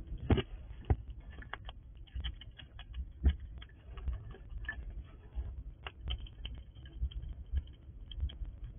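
Squirrel feeding from a container of sunflower seeds, rummaging and cracking shells: an irregular run of small clicks and crunches, with a few louder knocks near the start and about three seconds in.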